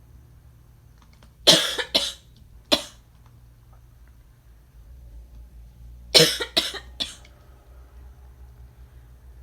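A person coughing in two short fits of about three coughs each: the first about one and a half seconds in, the second about six seconds in.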